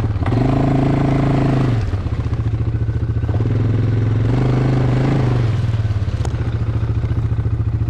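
ATV engine running steadily, its note strengthening twice, about half a second in and again around three seconds in.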